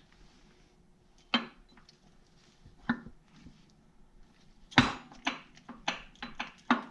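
Scattered sharp metallic clicks and clinks from parts being handled inside an opened tractor transmission: two single clicks, then a quick run of about eight during the last two seconds.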